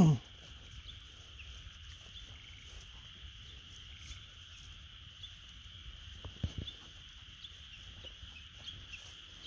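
Outdoor countryside ambience: a steady high insect drone with faint chirps scattered through it, and a few soft rustles and thuds, likely the dogs moving about. Right at the start there is one loud, short call that drops in pitch.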